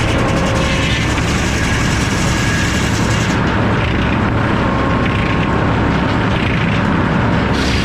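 Sawmill circular head saw with F-pattern inserted teeth running, together with the mill's machinery: a loud, steady mechanical din. The highest hiss drops away about three seconds in and comes back near the end.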